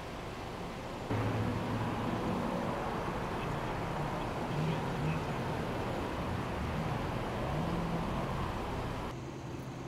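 A motor vehicle's engine running close by amid street noise, with a low pitch that wavers. It starts abruptly about a second in and cuts off just before the end.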